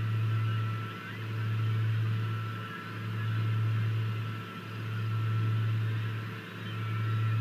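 Low mechanical hum that swells and fades about every two seconds, with a faint high whine above it.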